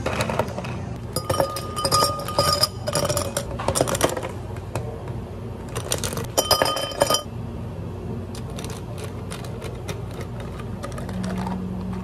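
Clinking and clattering of cafe cups and utensils during drink-making: sharp clinks with brief ringing in two busy spells, about a second in and around six seconds in, then lighter scattered clicks, over a steady low hum.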